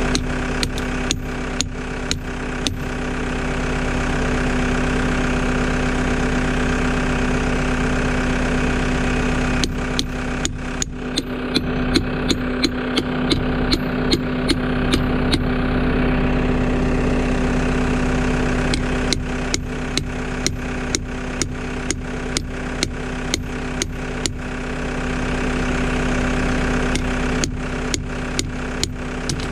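Runs of hammer blows on a steel pin being driven into the joint of a Camso over-the-tire rubber track, about two strikes a second, over the steady idle of a Caterpillar 262 skid loader's diesel engine.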